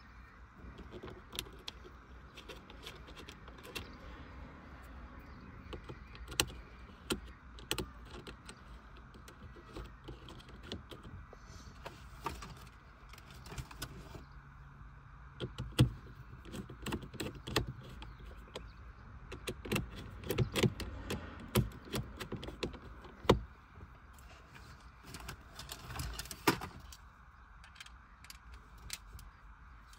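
Irregular clicks, snaps and knocks of hard plastic parts being handled and fitted around a car door's power-window switch, over a faint steady hum.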